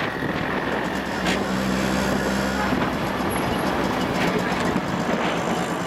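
Vehicle driving along a road: steady tyre, wind and traffic noise, with an engine hum coming in for about a second and a half near the start.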